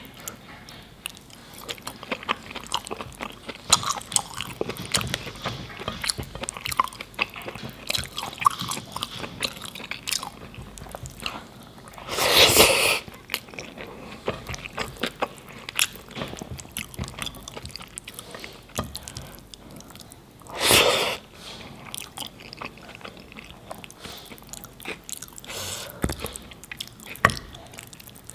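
Close-miked eating sounds: chewing with many small wet clicks, and the squelch of rice and sauce being worked by the fingers. Two louder noisy sounds, each about a second long, come about twelve and twenty-one seconds in.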